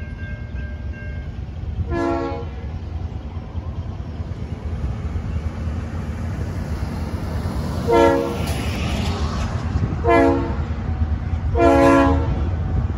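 Norfolk Southern GP38-2 diesel locomotive's horn sounding four blasts as the train approaches a grade crossing: a short one, then about six seconds later a long one, a short one and a final long one, which is the loudest. The locomotive's diesel engine rumbles underneath and grows slowly louder as it nears.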